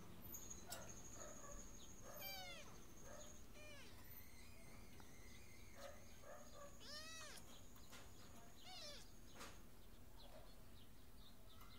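Kittens mewing faintly: about four short, high calls that rise and fall in pitch, spread across several seconds. A steady thin high tone runs beneath them and cuts off near the end, with a couple of small clicks.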